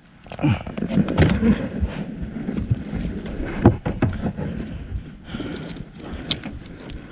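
A freshly caught red grouper thrashing on a boat's deck: a quick, irregular run of thuds and knocks, heaviest in the first few seconds and thinning out toward the end.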